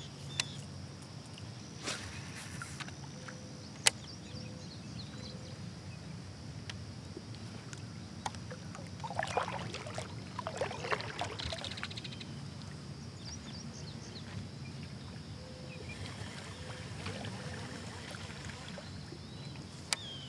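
Kayak paddle dipping and swishing through calm river water, with water trickling off the blade, a steady low background hum, and a sharp knock about four seconds in.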